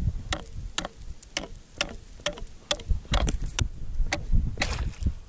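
Ice chisel (pešnya) chopping a fishing hole in thin first ice: rapid, uneven strikes of the steel point on the ice, a few per second, with the crack and scatter of ice chips.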